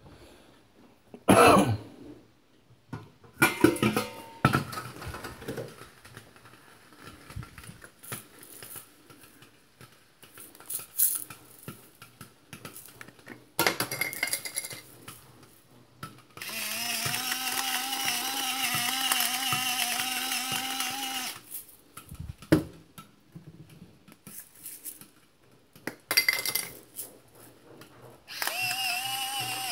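Electric pepper mill grinding peppercorns: a small motor whine over a gritty crunch, in two runs, one of about five seconds in the middle and another starting near the end. Before them, scattered knocks and clatter of pots and utensils.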